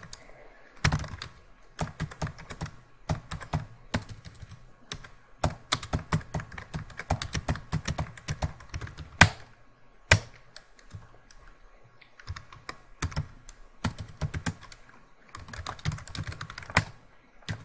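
Typing on a computer keyboard: quick runs of keystrokes broken by short pauses, with a few sharper single key strikes standing out.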